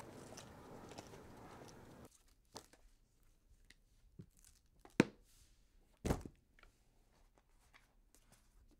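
Steady outdoor background noise cuts off about two seconds in. Then, in a quiet room, paper and a cardboard box are handled in short rustles and tears, with a sharp click about five seconds in and a heavier knock a second later.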